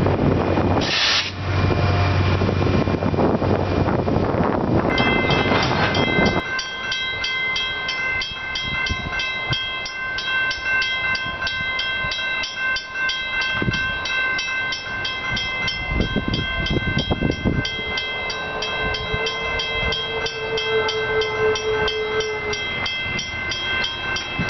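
Diesel locomotive running close by with wind on the microphone; about five seconds in, a grade-crossing bell starts ringing with rapid, even strokes. About three-quarters of the way through, a distant train horn sounds one steady note for several seconds.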